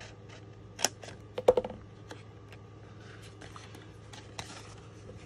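Paper snips cutting black cardstock: a few sharp snips in the first two seconds, the loudest about a second and a half in, then the rustle of the cardstock being handled.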